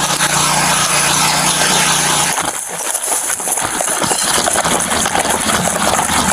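A vehicle engine running amid loud, hissy noise. A steady low hum under it cuts out about two and a half seconds in, and the hiss carries on.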